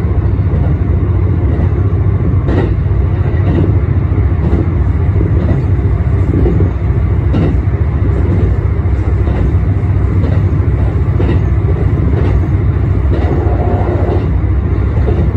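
ET122 diesel railcar running along the line, heard from the driver's cab: a steady low rumble of engine and running gear, with faint wheel clicks over rail joints about once a second.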